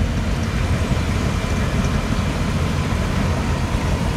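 Hot rod coupe's engine running at a slow crawl as it rolls past, a deep, uneven note, with the engines of the classic cars behind it running underneath.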